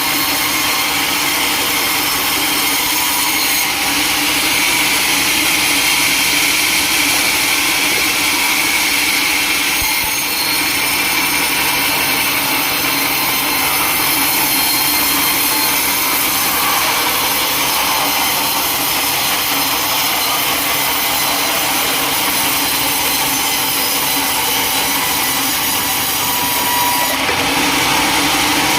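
Sawmill saw cutting through a large log: a steady, loud, hissing cutting noise.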